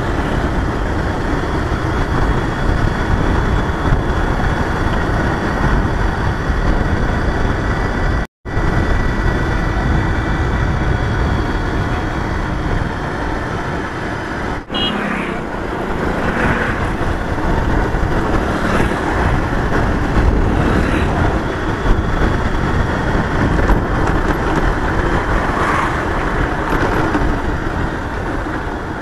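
A motorcycle riding along an open road: steady wind rush on the microphone with the bike's engine running underneath. The sound cuts out completely for a moment about eight seconds in and dips briefly again about halfway through.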